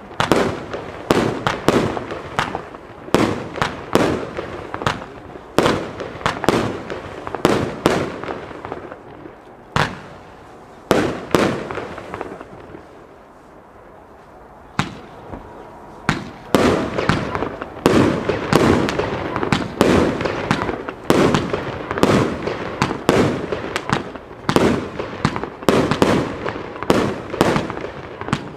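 Orginal Fireworks 'Brutal Box' compound firework cake firing a rapid series of shots, one to two bangs a second, with crackle between them. About halfway through the firing thins to a few seconds of near-lull, then dense shots resume.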